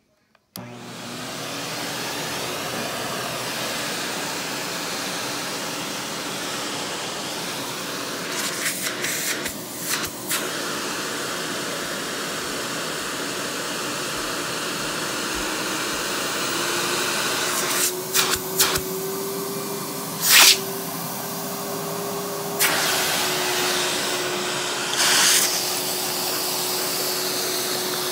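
Kenmore canister vacuum cleaner switching on about half a second in and running steadily with its power nozzle on carpet; its hum steps up slightly about two-thirds of the way through. Several short rattling bursts come as bits of debris are sucked up the wand.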